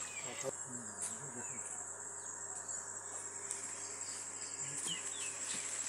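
Insects droning around a pond: a steady, high-pitched chirring that holds one pitch, with faint voices in the background.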